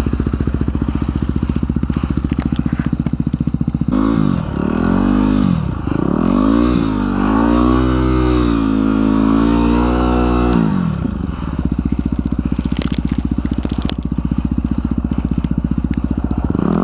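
Yamaha WR250R's single-cylinder 250 cc engine idling, then revved up and down repeatedly for about six seconds from about four seconds in before dropping back to idle, with a short rev near the end. The bike is stuck in deep snow.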